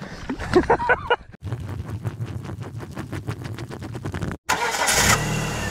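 A vehicle engine cranking on its starter, an even fast chugging of about seven strokes a second, then catching and running steadily.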